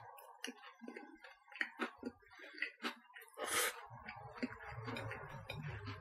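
Mouth chewing and small crackles from a crusty baguette sandwich being pulled apart by hand, with one louder crunch of the crust about three and a half seconds in. A low hum comes in just after it.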